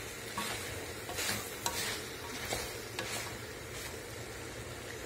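Wooden spoon stirring and scraping chicken pieces around the bottom of an aluminium pressure cooker in a few irregular strokes, over a steady sizzle of the chicken frying. The scraping loosens the browned bits stuck to the pan so they don't burn.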